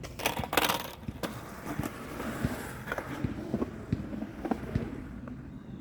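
Skateboard wheels rolling on concrete, a steady rumble broken by several sharp clacks of the board. A brief loud rush of noise comes near the start.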